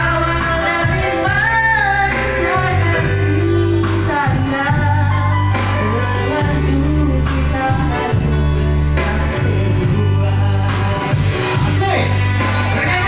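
A woman singing through a microphone and PA over live band backing, with keyboard and long held bass notes; a man's voice sings along at times.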